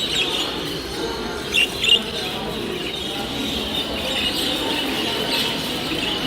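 A roomful of caged budgerigars chirping and twittering steadily, with two louder sharp chirps about a second and a half in.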